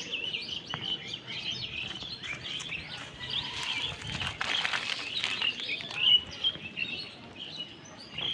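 Small birds chirping and twittering in many short, repeated calls. A brief rustling crackle comes in the middle and a single sharp knock about six seconds in.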